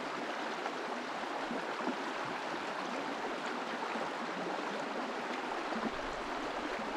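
Steady running water of a trout creek, an even hiss with no change.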